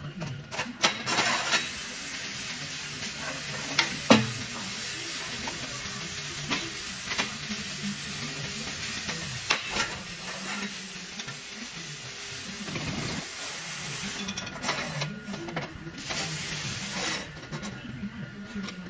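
Metal exhaust pipe sections and band clamps being handled: scattered clicks and knocks, the loudest about four seconds in, over a steady hiss of shop noise.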